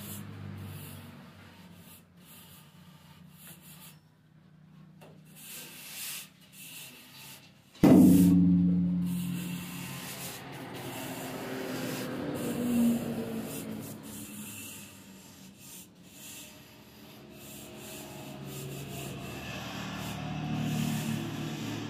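A long straight-edge bar scraped and dragged across a damp sand-and-cement mortar bed, a gritty rubbing, as the bed is screeded level for laying floor tiles. A sudden louder sound breaks in about eight seconds in.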